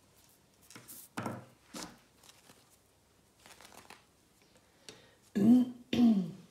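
Soft rustling and light clicks of a crochet hook working yarn. Near the end, two short spoken words about half a second apart from a woman counting stitches; they are the loudest sound.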